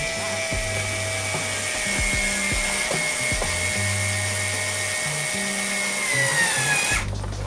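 Small Bosch cordless screwdriver motor whining steadily as it drives a screw home. Its pitch sags slightly near the end as the screw tightens, then it stops about seven seconds in.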